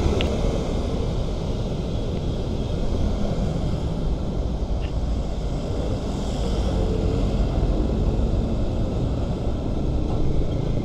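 Busy road traffic with tour coaches and motorcycles passing close. Their engines and tyres make a steady low rumble, muffled because the microphone is covered by the camera's casing.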